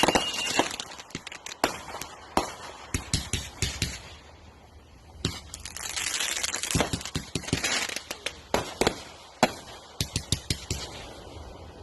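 Consumer aerial fireworks going off: a run of sharp bangs at uneven spacing, with stretches of crackling and rapid clusters of pops late on.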